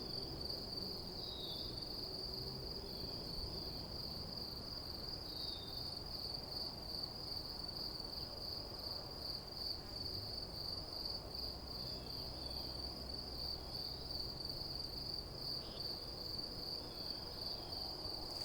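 Insects trilling in a steady, high, finely pulsing chorus, with a few faint short chirps now and then over a low background rumble.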